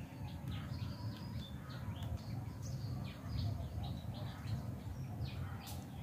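Small birds chirping in the trees, many short, quick, falling chirps in a scattered chorus over a steady low rumble.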